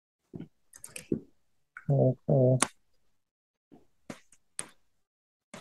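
Computer keyboard keys clicking in scattered single strokes and short runs as code is typed. About two seconds in, a short two-syllable spoken word is the loudest sound.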